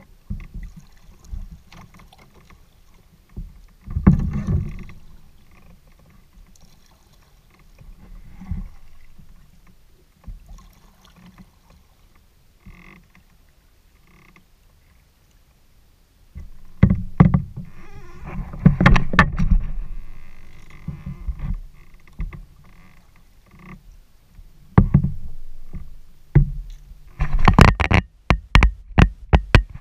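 Kayak paddling: a paddle stroking and splashing through calm water, with knocks against the plastic hull, over a low rumble. Near the end comes a quick run of sharp clicks and knocks, the loudest sounds of the stretch.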